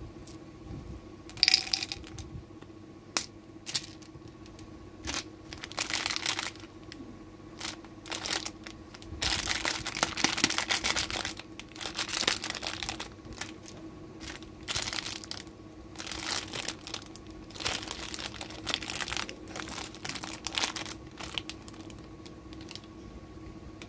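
Plastic candy wrappers crinkling and rustling in irregular bursts as hands open lollipops, with the wrapper tearing open near the end.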